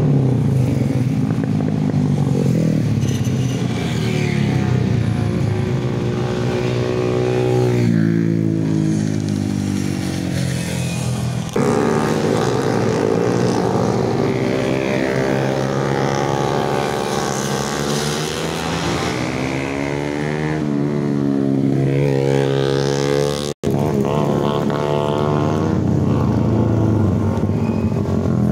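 Several motorcycles and scooters passing one after another at speed through a bend, their engines revving up and down in overlapping rising and falling sweeps. The sound breaks off for a moment about three-quarters of the way through.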